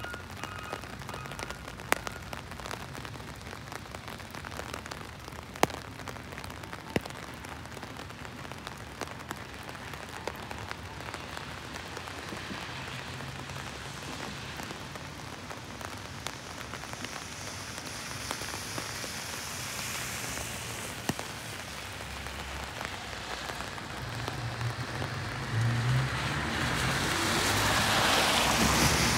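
Steady rain falling on the street and pavement, with occasional sharp drips. Over the last few seconds a louder hiss with a low hum builds up: a vehicle passing on the wet road.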